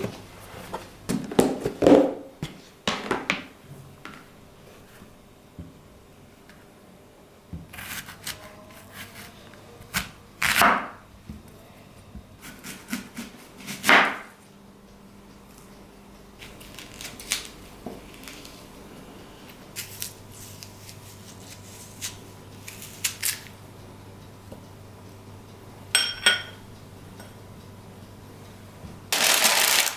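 Intermittent clicks, knocks and short scrapes of household objects being handled and set down during tidying, with a quick run of ticks a little before the end. A faint steady low hum sits underneath.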